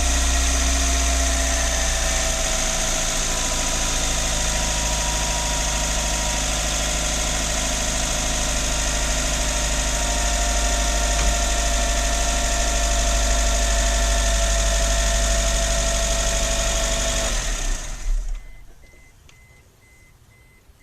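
Daihatsu Max RS's JB-DET turbocharged engine idling steadily with the rattling ('karakara') noise, like a broken blade, that the owner hears at idle and while driving; with no loss of power he doubts it is the turbo. The sound cuts out about 17 seconds in.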